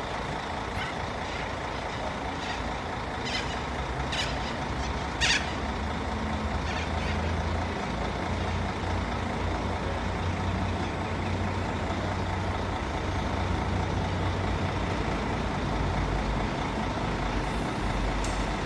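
Low, steady drone of an approaching V/Line N class diesel-electric locomotive, still distant, growing a little stronger about six seconds in. A few brief high ticks sound in the first five seconds.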